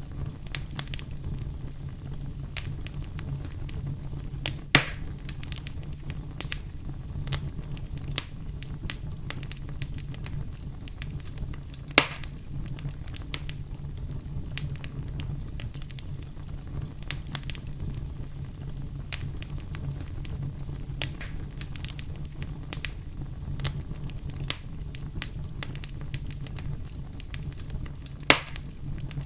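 Campfire burning, the wood crackling with a scatter of small pops and three louder snaps, over a steady low rumble.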